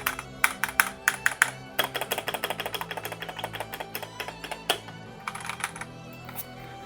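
Mechanical keyboard keys with linear Speed Silver switches being pressed by hand, a run of quick clacks. Background music plays underneath.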